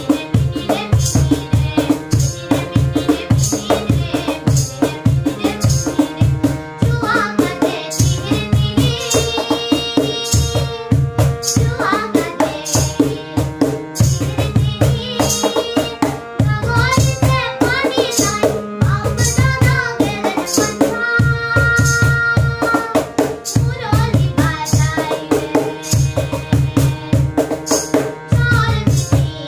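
A girl singing a song, accompanied by a harmonium holding steady chords and a Kaxon Box cajon played with the hands in a steady rhythm.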